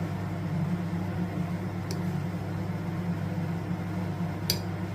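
A spoon stirring honey into shallot juice, clinking lightly against the container twice, about two seconds and four and a half seconds in, over a steady low hum.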